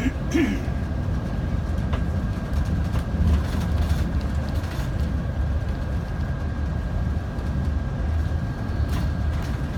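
Steady low rumble of a moving vehicle heard from inside, with a faint steady high whine over it.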